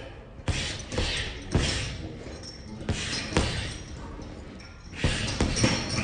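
Boxing gloves striking a heavy punching bag: about eight hard punches landing in three quick combinations of two or three blows each.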